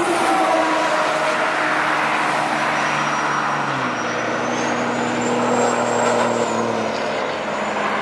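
Fourth-gen Ram's 6.7 Cummins diesel with a T51R-modified turbo accelerating past on the highway: engine drone over road noise, with a thin high turbo whistle that rises about four seconds in, holds, and falls away near the end.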